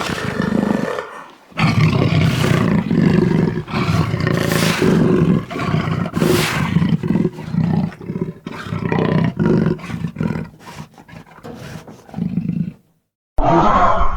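Jaguar growling and roaring in a long run of rough, repeated grunting strokes that come faster and shorter toward the end, then stop; after a brief silence a new call begins right at the end.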